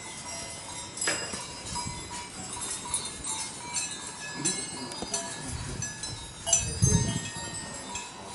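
Many small metal bells tinkling irregularly, several ringing at once with short fading high notes, and a louder low sound about seven seconds in.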